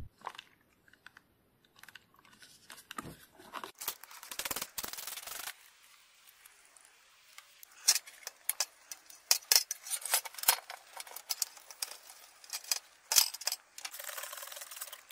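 Hand-work noises on a bicycle's hydraulic disc brake caliper during cleaning: rubbing and scraping, then a quick run of sharp clicks and taps, and a short stretch of rubbing near the end.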